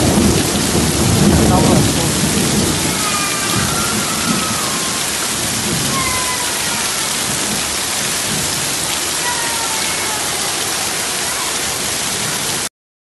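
Heavy rain pouring down and floodwater running, heard as a steady hiss of water. A louder low rumble comes through in the first two seconds. The sound cuts off abruptly near the end.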